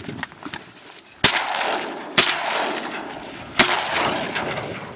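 Three shotgun shots fired at incoming ducks, about a second apart, each trailing off in an echo.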